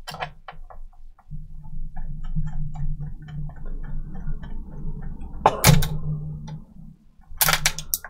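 Small metal clicks and scraping from a tool working a stubborn screw with a stripped thread in a laptop's plastic base. A low hum runs through the middle, and two louder, sharp noises come near the end.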